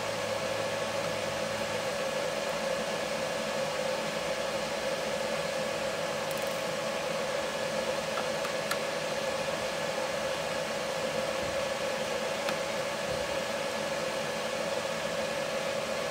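Steady hiss with a constant hum, background noise under the recording, with a few faint light ticks partway through.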